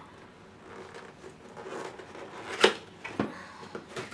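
Red cardboard box being opened by hand: low rustling and scraping of the cardboard flaps, with two sharp knocks a little past the middle.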